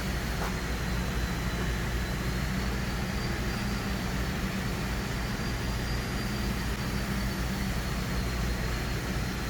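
Kingston HR 2000 heavy-duty engine lathe running steadily: a constant low hum with a faint, slightly wavering high whine over it.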